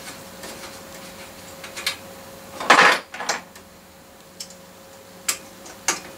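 Metal hand tools clinking and rattling against a mountain bike's headset as it is taken apart: a louder scraping rattle about three seconds in, then a few single sharp taps.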